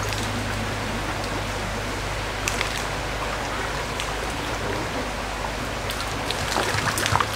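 Steady rush of flowing stream water, the water that drives the waterwheel turning the chicken skewer, with a low steady hum beneath it. Sharp crackles come now and then, more of them near the end.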